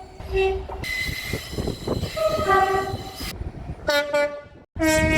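Train two-tone horns sounding several short blasts that alternate between a low and a high note, in quickly cut-together clips with train running noise between them and a sudden cut near the end.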